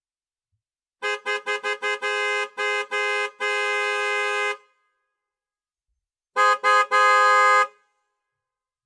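Car horn honking with two notes sounding together: a quick run of about six short beeps, a few longer honks and a blast held about a second. After a pause of nearly two seconds come two short beeps and a longer blast.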